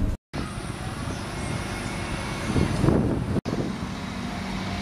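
Vehicle and street noise by the tramway, with wind on the microphone, broken twice by sudden cuts. A brief swell of sound comes about three seconds in.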